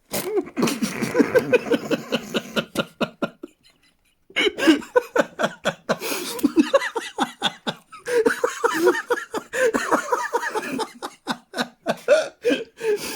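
People laughing in two long fits of rapid, breathy bursts, with a brief pause about three and a half seconds in.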